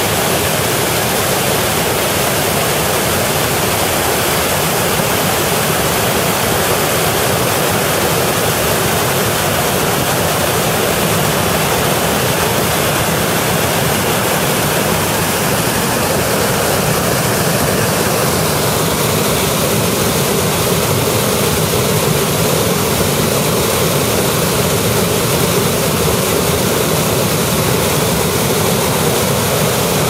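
Aira Beck in flood, rushing over rock slabs and down the falls at Aira Force: a loud, steady rush of white water whose tone shifts slightly a little past the middle.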